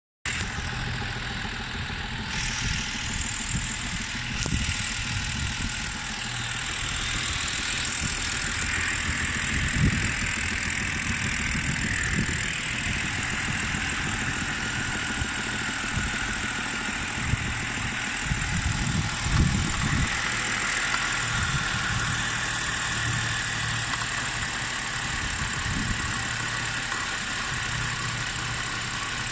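BMW N52B25 straight-six engine idling, with a dull knock heard as irregular low thuds over the steady running; the strongest come about ten seconds in and around nineteen seconds in.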